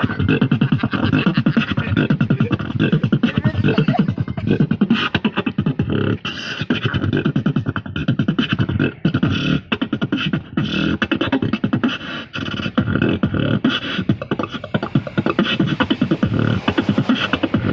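Human beatboxing into a handheld microphone: a fast, unbroken stream of mouth-made kick, snare and hi-hat sounds keeping a steady beat.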